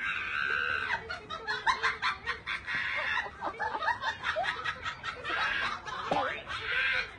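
Laughter in quick repeated giggling bursts, high-pitched.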